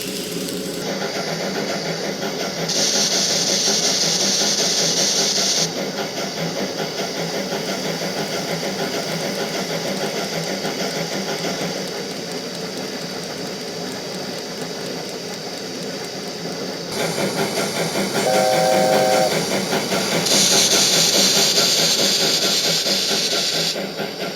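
A model-railway sound box plays steam locomotive sounds through a small speaker: steady rapid chuffing, two spells of loud hissing steam, and a brief whistle toot about 18 seconds in.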